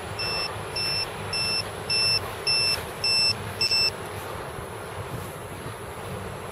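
Piezo buzzer on a downed FPV quadcopter beeping, short high-pitched beeps about two and a half a second, stopping about four seconds in.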